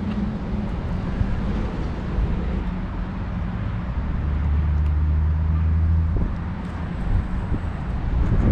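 A low engine drone, with a stronger hum for a couple of seconds in the middle.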